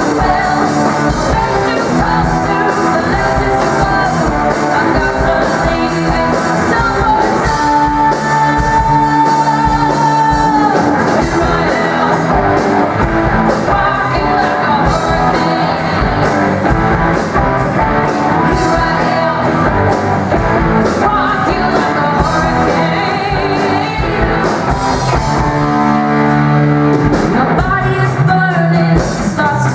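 Rock music with singing and guitar, loud and continuous, with one long held note about seven seconds in that lasts some three seconds.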